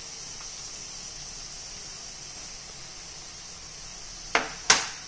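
Steady faint hiss, then near the end two sharp knocks about a third of a second apart: a wooden spoon striking a glass mixing bowl while stirring a dry breadcrumb and cheese mixture.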